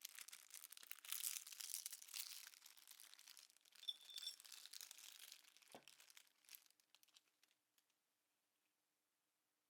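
Crinkling and rustling of something being handled by hand, in close, irregular crackles that die away about seven and a half seconds in.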